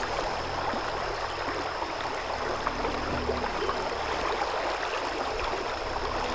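Creek water running steadily, a continuous even wash of flowing water, the creek up high after rain.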